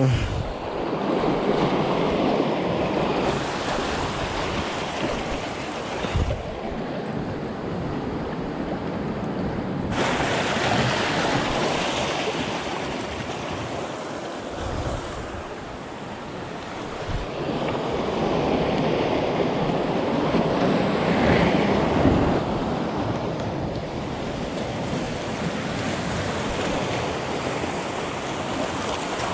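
Sea waves washing, with wind buffeting the microphone, rising and falling in slow swells.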